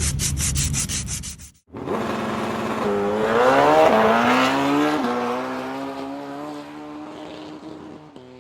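Emery cloth rubbed back and forth across a rusty, corroded baler wheel shaft, about five quick rasping strokes a second, for about a second and a half. It then cuts off, and a louder engine-like drone takes over, rising in pitch, dropping suddenly about five seconds in, then holding steady and fading.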